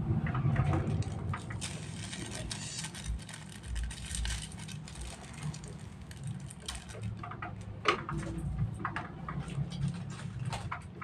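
Small plastic seasoning sachets crinkling and rustling as they are handled, torn and shaken out, in many short scattered clicks over a steady low hum.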